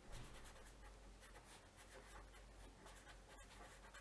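Felt-tip pen writing on paper: faint, quick, irregular scratches of handwriting strokes.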